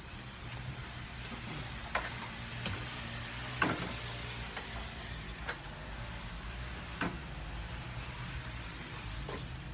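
Pressure washer running with a steady low hum while its pump tries to draw water up the hose from a bucket, not yet primed. A few sharp clicks sound over it.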